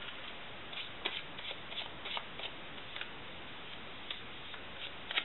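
Faint rustling and small crackles of hands handling materials, a few short ticks a second over a low steady hiss.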